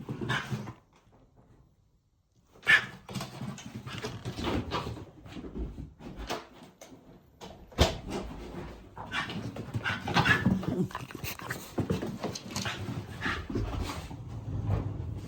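Shiba Inu dog making excited whining and breathing noises, with short high squeaks. The noises start after a brief pause near the start and go on irregularly.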